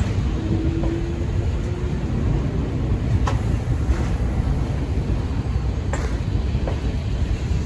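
Subway train running with a steady low rumble, with a few sharp clicks scattered through it and a faint steady tone in the first couple of seconds.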